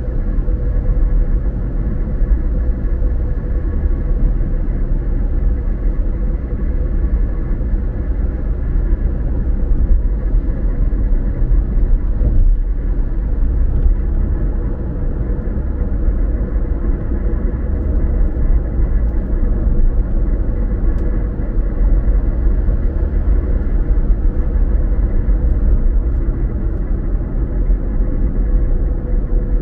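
Steady low rumble of a car driving, road and tyre noise as heard inside the cabin, with a constant hum running under it.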